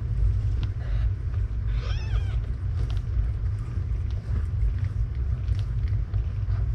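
Steady low purring rumble from a nursing mother cat, with one short, high mew from a newborn kitten about two seconds in and faint small clicks.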